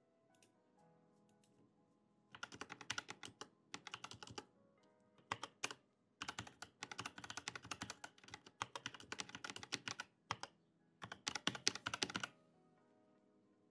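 Typing on a computer keyboard: rapid key clicks in several runs, starting about two seconds in and stopping shortly before the end, with brief pauses between runs. Quiet background music plays underneath.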